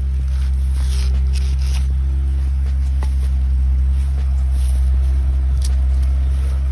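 A steady low machine-like hum throughout, with scraping and a few light knocks as a machete blade trims soil and roots off a banana corm.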